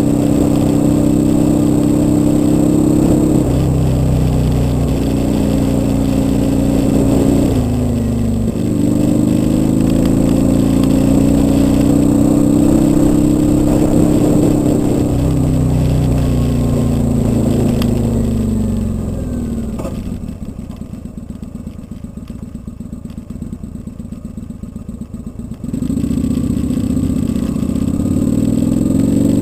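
Kawasaki Vulcan 800 V-twin motorcycle engine heard from on board, pulling through a couple of upshifts with the note dropping at each change, then rising with the throttle. It falls away as the rider eases off, settles to a quieter, lumpy low running for several seconds, and picks up loudly again near the end as the throttle opens.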